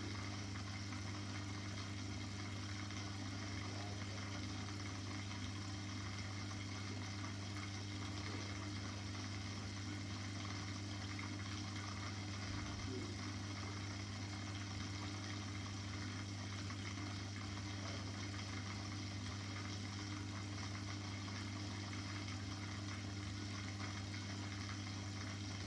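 Aquarium filter pump humming steadily, with a faint even hiss of moving water.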